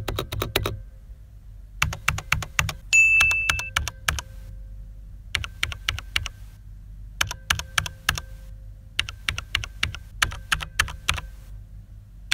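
Mechanical keyboard with Cherry MX Speed switches being typed on in quick bursts of keystrokes separated by short pauses, keycap clacks as a sound test of keycap noise. A short high beep sounds about three seconds in.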